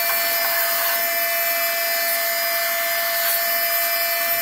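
Small handheld vacuum cleaner running steadily, its motor giving a constant whine over an airy hiss as it sucks dust out of an open PC case.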